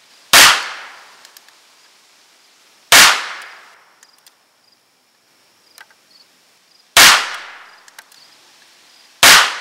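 Four shots from a Harrington & Richardson Model 622 .22 rimfire revolver fired slowly, each a sharp crack with a short decaying tail. The shots come unevenly spaced, two to four seconds apart.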